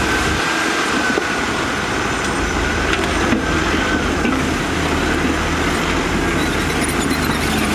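Heavy diesel earthmoving machinery running steadily: a low engine drone with a thin, wavering high whine over it that fades about halfway through.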